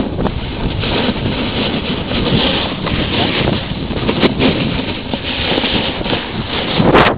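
Wind buffeting the microphone of a camera carried by a downhill skier, mixed with the steady hiss of skis sliding over packed snow. A brief louder gust of wind noise comes near the end.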